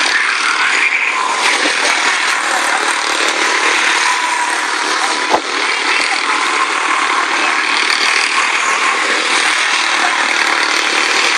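Quarter midget race cars' small single-cylinder engines buzzing at high revs as several cars lap a short paved oval, with a single sharp click about five seconds in.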